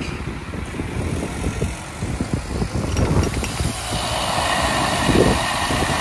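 Fire hydrant being opened up to flush: water spraying out with a rushing hiss that swells about four seconds in as the flow grows to a full gush. A low rumble runs underneath.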